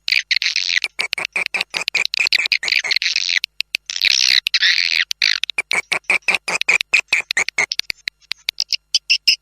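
Swiftlet call recording: a fast, dense train of clicks mixed with high twittering chirps, the lure sound played to draw swiftlets into a nesting house. The twittering breaks off briefly about three and a half seconds in, and near the end only sparser clicks remain.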